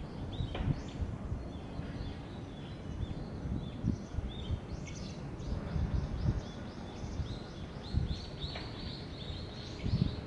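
Small birds chirping, short high calls scattered throughout with two quick runs of notes, the second near the end, over a low rumble of wind on the microphone.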